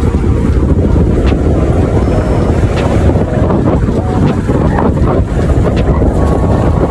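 Wind buffeting the microphone of a camera held in a moving car, a loud, steady low rumble.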